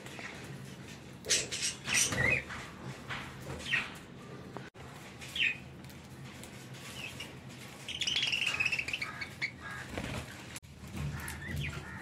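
Budgerigars chirping in short calls, with wing flutters and rustling, and a longer run of rapid warbling chatter about eight seconds in.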